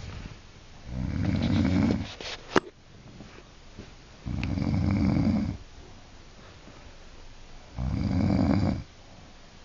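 An elderly woman snoring in her sleep: three loud snores, each about a second long and roughly three and a half seconds apart, with quiet breathing between. A single sharp click comes just after the first snore.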